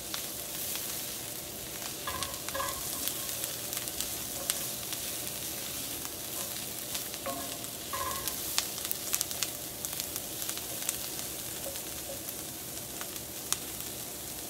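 Onions sautéing in butter in a skillet, sizzling steadily with scattered crackles and pops.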